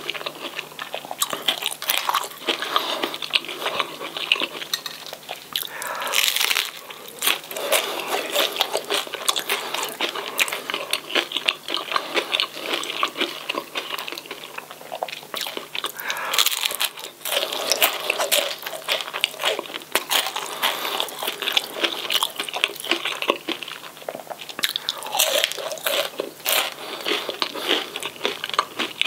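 Close-miked eating of crispy fish and chips: crunchy bites and chewing of the fried batter and fries, a dense run of irregular crackles.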